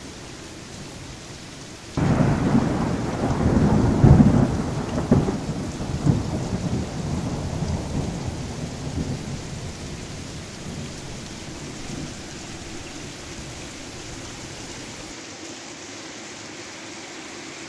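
Heavy rain falling steadily, with a clap of thunder about two seconds in whose low rumble is loudest a couple of seconds later and then dies away slowly.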